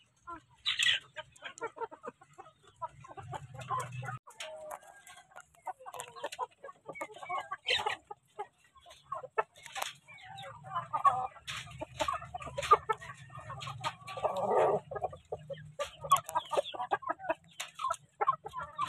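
Basilan native chickens clucking in a wire coop, with a scatter of short sharp taps. One louder, longer call comes about three-quarters of the way through.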